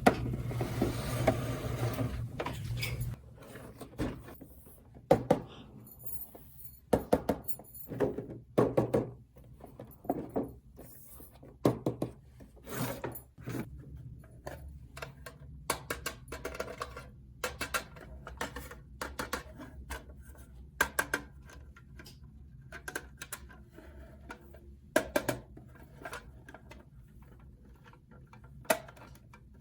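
Small plastic toy pieces being handled and set down, making irregular clicks and knocks. A low steady hum stops about three seconds in.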